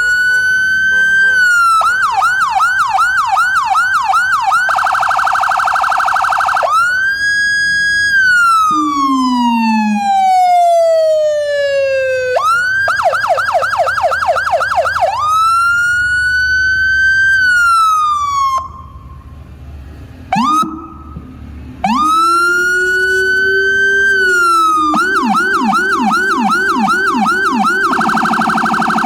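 Whelen HHS3200 electronic siren through a 100 W speaker, cycling through its tones: a slow rising and falling wail, a fast yelp, a rapid warble and a long falling wind-down, then the wail again. After a brief dip in level about two-thirds of the way through, a much lower second tone from the Feniex low-tone speaker joins in, following the wail, yelp and rapid warble together with the high tone.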